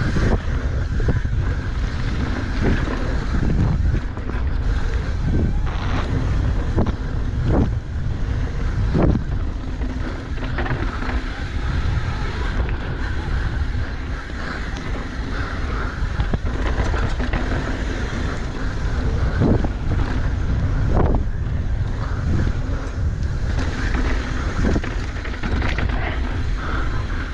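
Downhill mountain bike, a 2022 Specialized Demo Race, ridden fast on a dirt trail: wind buffeting the microphone over the steady rumble of tyres on dirt. Several sharp knocks and rattles from the bike are heard as it hits bumps.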